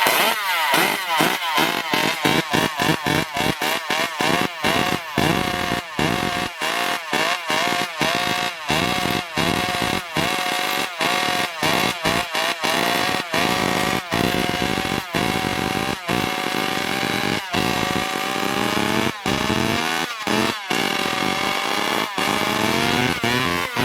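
Racing chainsaw's two-stroke engine running at high revs. Its pitch wavers up and down over and over, with many brief cut-outs, more frequent in the first half.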